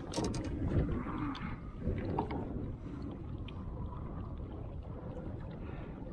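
Splashing in the first couple of seconds as a hybrid striped bass is let go at the surface beside the boat, then steady water lapping and low wind noise.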